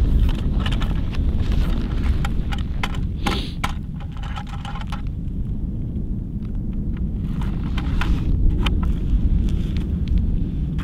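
Wind buffeting the microphone, a steady low rumble, with scattered sharp clicks and crunches over it, most of them in the first half and again past the middle.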